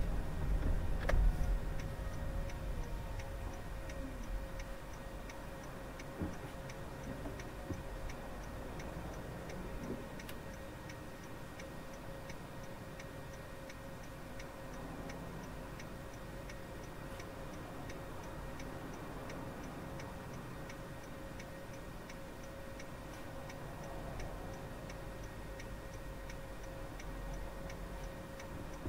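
A car's turn-signal indicator ticking steadily, about two to three ticks a second, over the low hum of the car waiting at a standstill.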